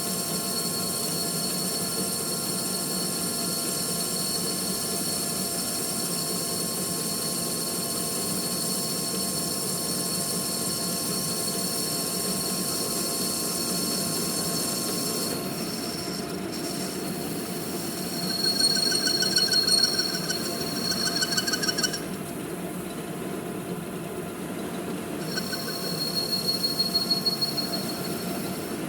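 Manual metal lathe running, with a steady hum and several fixed high whining tones. A high, wavering squeal comes in twice in the second half, as a lathe tool squeals against metal.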